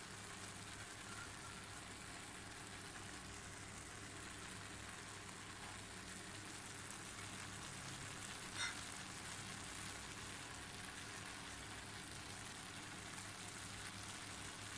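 Faint steady sizzling hiss of sweet zarda rice cooking in a pan on the stove, with a single short click about eight and a half seconds in.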